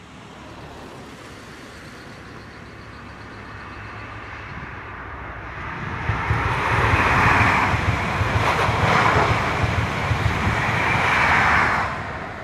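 High Speed Train with Class 43 diesel power cars passing at speed: engine and wheel-on-rail noise grow steadily louder, stay loud through the second half with a few brief knocks from the wheels, then fall away sharply near the end as the train goes by.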